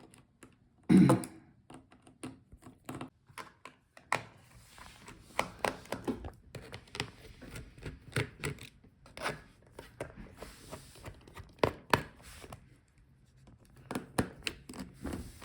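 Irregular small clicks and taps of a Torx T5 screwdriver working the bottom screws of a Framework 13 laptop, with handling knocks of the laptop case; a louder knock comes about a second in.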